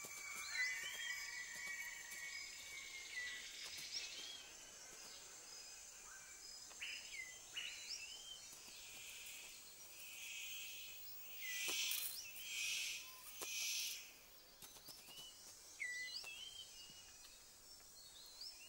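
Forest ambience of short, repeated chirping bird calls over a faint insect drone, with three hissing bursts of noise over a few seconds near the middle.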